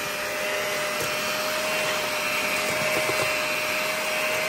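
Electric hand mixer running steadily, its beaters creaming butter and sugar in a stainless steel bowl; the motor gives a steady whine over a whirring hiss.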